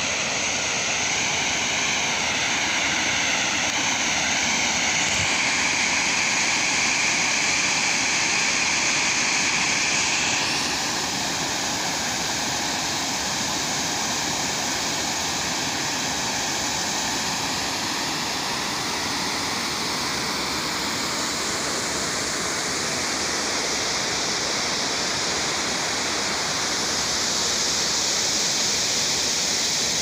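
Water pouring over a concrete weir spillway into a pool, a steady rushing that drops a little in level about ten seconds in.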